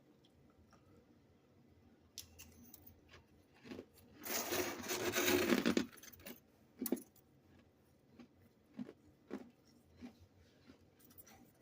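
Freezer frost being scraped: one dense scrape lasting about a second and a half near the middle, followed by a few sharp, crisp clicks and crunches.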